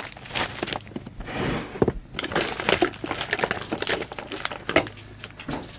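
Irregular crinkling and crackling of plastic wrapping being handled and pulled at, as a sealed trading card box is opened.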